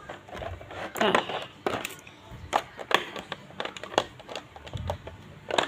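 Plastic stationery-set tray and the pens and tools in it handled by hand: irregular clicks and knocks of plastic on plastic.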